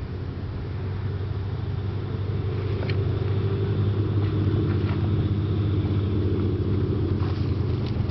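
A motor running steadily nearby, a low engine-like rumble that grows slightly louder, with a few faint clicks over it.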